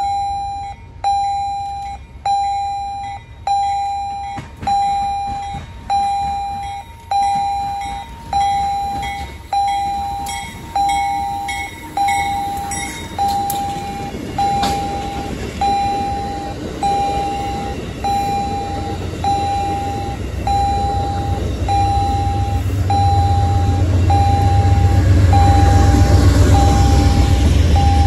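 Railroad grade-crossing warning bell ringing steadily, about one strike a second, each ding sharp and then fading. A low rumble builds in the last third.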